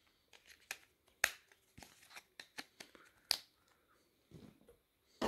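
Scattered sharp plastic clicks and light knocks of handling, two of them louder (about a second in and a little past three seconds in), as a battery is fitted into a UTStarcom CDM8074VM flip phone.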